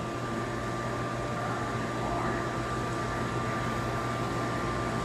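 Steady background hum and hiss of indoor machinery, with a low drone and a thin, steady high tone.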